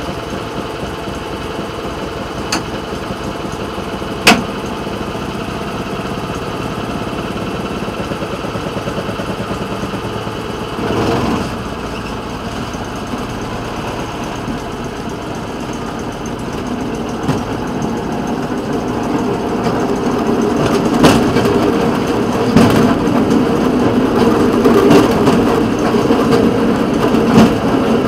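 Rail speeder's small engine running steadily as the motorcar travels along the track, growing louder over the second half. Occasional sharp clacks, typical of wheels crossing rail joints, come through the running noise.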